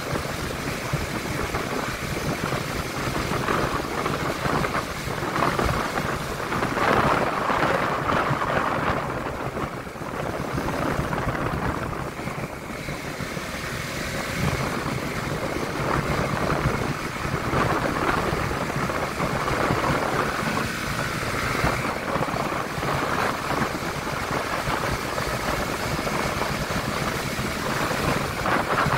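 Riding noise from a Honda CB150X motorcycle under way: wind rushing over the microphone, swelling and easing, over the engine and road noise.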